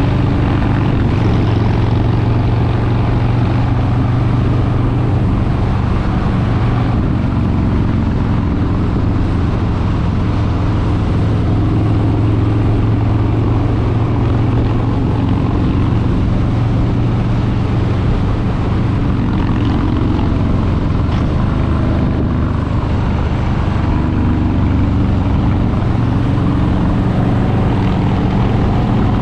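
Harley-Davidson Street Bob 114's Milwaukee-Eight 114 V-twin running steadily, its exhaust note holding a low, fairly even pitch with only small rises and falls.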